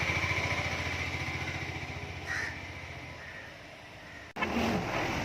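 An engine running with an even pulse, fading away over a few seconds, and a crow cawing once about two seconds in. The sound cuts off abruptly near the end and a different background takes over.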